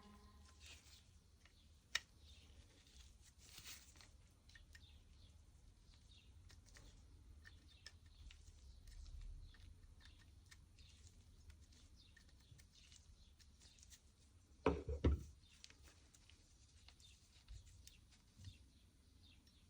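Faint scattered clicks and light taps of small parts being handled, with one sharp click about two seconds in and a pair of louder knocks about fifteen seconds in.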